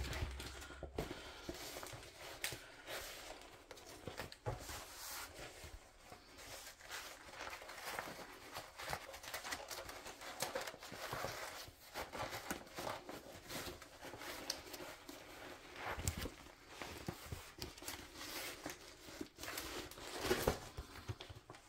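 Crinkling and rustling of a large diamond painting canvas, plastic film over its adhesive, being handled and rolled the wrong way to flatten it, with scattered light taps and clicks throughout.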